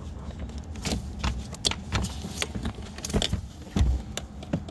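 Irregular plastic clicks and rattles of door-card wiring connectors being handled and unplugged, their tabs pushed in and the halves pulled apart, with a duller knock a little under four seconds in and a low rumble underneath.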